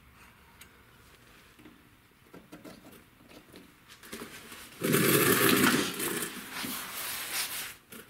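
A cloth rag rubbing and wiping against the mower engine and deck for about three seconds, a loud rough rustling that starts about five seconds in, mopping up gasoline leaking from the fuel line. Before it, faint clicks of hands handling the carburetor.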